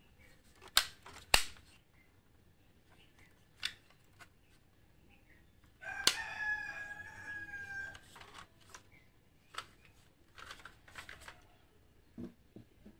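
Sharp clicks of a diecast model car's opening doors and hatch being handled, two loud ones about a second in and lighter taps later. A rooster crows once for about two seconds midway.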